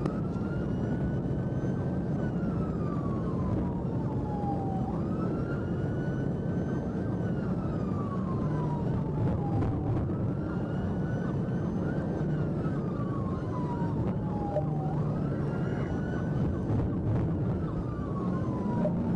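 Police car siren on a wail, sweeping up quickly, holding, then gliding slowly down, about four cycles roughly five seconds apart. Under it runs steady road and engine noise from the moving patrol car.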